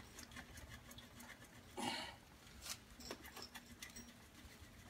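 Faint clicks of a hand socket ratchet working a bolt on a motorcycle's exhaust, with a brief louder noise about two seconds in.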